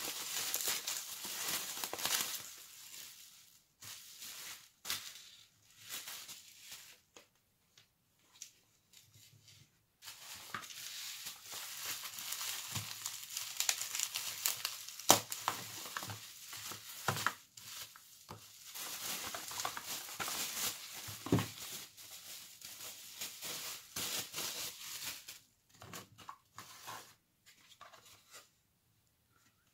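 Plastic bubble wrap crinkling and rustling as it is pulled off small boxes by hand, in stretches with short pauses and a few sharper crackles. Near the end only light handling sounds of a cardboard box.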